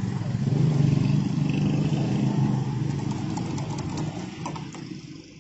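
A motor vehicle's engine running close by, swelling in the first second and fading toward the end, with a few light clicks in the last couple of seconds.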